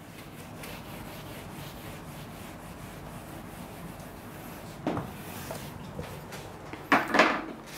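A whiteboard eraser rubbing back and forth across a whiteboard in repeated wiping strokes. There are two louder, sudden sounds, about five and seven seconds in.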